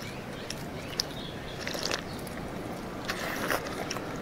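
Eating sounds at the table: chopsticks clicking against bowls, then rice porridge slurped straight from the bowl about three seconds in.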